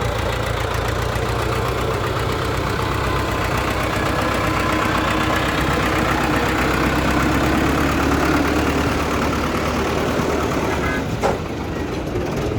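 Diesel engine of heavy earth-moving machinery running steadily, with a single sharp knock about eleven seconds in.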